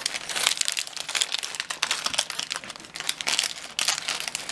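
Thin plastic packaging of tiny building-brick parts crinkling as it is handled, a dense irregular crackle.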